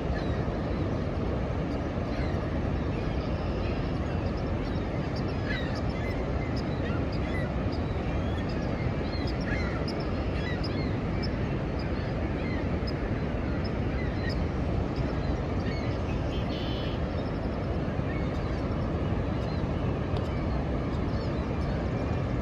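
Steady rush of Niagara Falls' falling water, with many short bird calls scattered over it.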